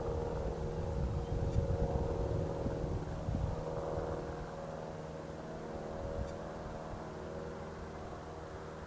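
Boeing 737-800's CFM56-7B turbofan engines running at taxi power: a steady whine made of several tones over a low rumble. The rumble eases off about three or four seconds in.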